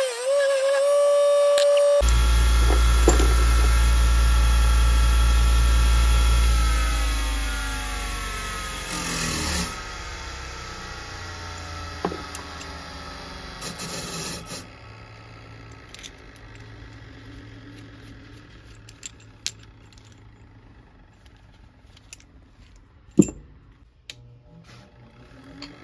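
Bench grinder fitted with a wire brush wheel starts about two seconds in and runs with a steady hum and whine. After a few seconds it is switched off and coasts down, its whine falling in pitch for several seconds until it stops. Light clicks of handling follow, with one sharp knock near the end.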